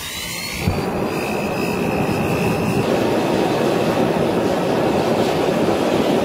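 Gas forge burner running with a steady rushing roar of flame, getting louder just under a second in, with a faint whistle in the first few seconds, as a steel bearing race is heated in the forge.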